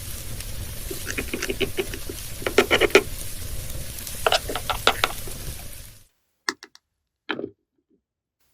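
Chicken drumsticks sizzling as they fry, with light taps and scrapes of a utensil in the pan. The sizzling cuts off suddenly about six seconds in, leaving a few small clicks.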